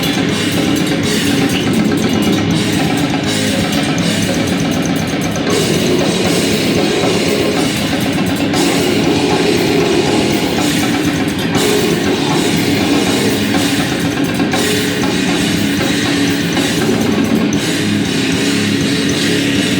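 A heavy band playing live and loud without a break: distorted guitar over a drum kit, with frequent cymbal crashes.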